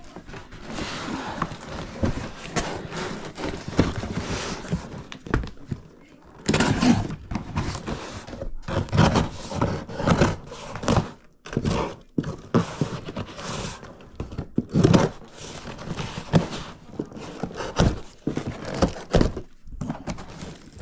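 A parcel being handled and opened by hand: irregular thunks, scrapes and rustling of packaging, busier from about six seconds in.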